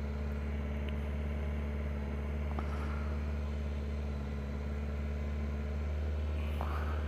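Honda CBR1100XX Super Blackbird's inline-four engine idling steadily while the bike stands still.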